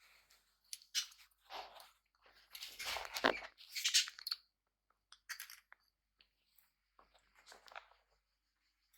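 Small pet parrots chewing: a run of irregular crunches and scrapes coming in short clusters, loudest about three to four seconds in.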